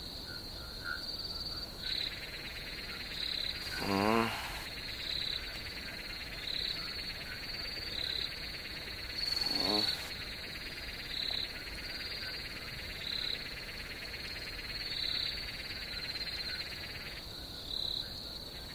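Night chorus of crickets chirring steadily, with a high pulse about once a second, and frogs croaking a few times.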